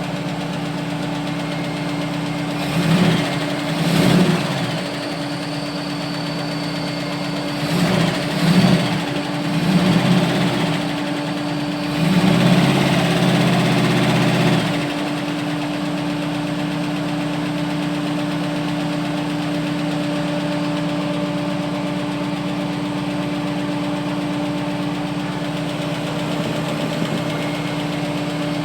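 AMC 401 V8 engine running with a lifter tick. It rises in speed briefly a few times in the first half, then settles into a steady idle.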